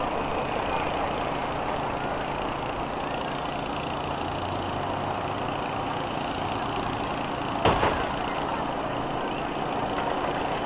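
Engines of school buses in a demolition derby running steadily, with one loud bang about three-quarters of the way through.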